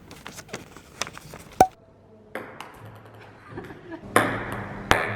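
Scattered light taps and clicks, with one sharp click about a second and a half in that rings briefly with a short ping.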